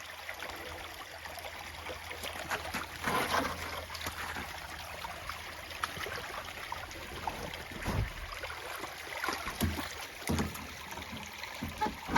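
Meltwater floodwater running through a slushy channel, a steady flowing noise, with a few low thumps scattered through it.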